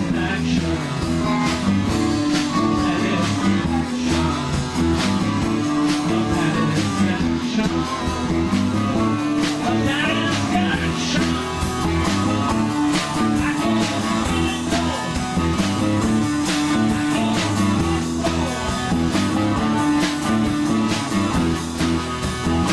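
Electric guitars playing a rock-blues instrumental passage over a steady drum beat, played live.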